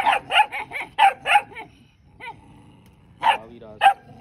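Dog barking: a quick run of about five sharp barks in the first second and a half, a pause, then two more barks near the end.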